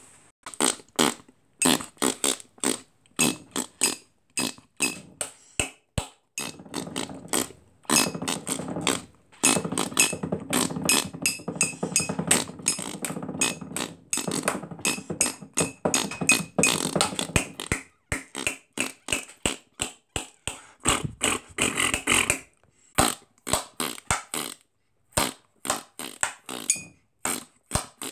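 A man beatboxing: a fast, steady run of mouth-made kicks, snares and clicks, about four hits a second. A low held hum sits under the beat for roughly ten seconds in the middle, and there is a short hissing burst a little after that.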